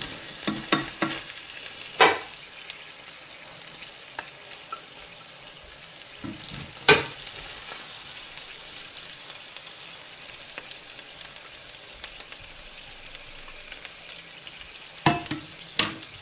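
A plastic spatula scraping and knocking against a frying pan as food is lifted out onto a plate, over a steady sizzle from the hot pan. Sharp knocks come about two and seven seconds in, the loudest, and twice more near the end.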